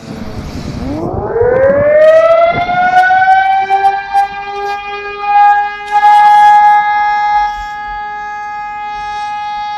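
Fire station alarm siren winding up from a low growl to a steady high wail over about two seconds, then holding one pitch. It is sounding the alarm that calls out the volunteer fire crew.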